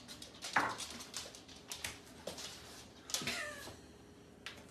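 A dog giving two short whining cries, about half a second in and about three seconds in, the second sliding down in pitch.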